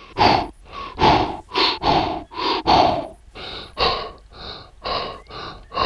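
A man's voice making rapid, breathy huffs in an even rhythm, about three a second, without words.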